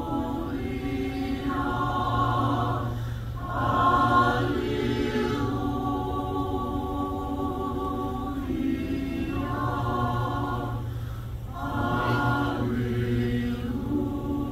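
Mixed choir of men's and women's voices singing Orthodox sacred music a cappella in sustained, slowly changing chords, swelling louder about four seconds in and again near the end.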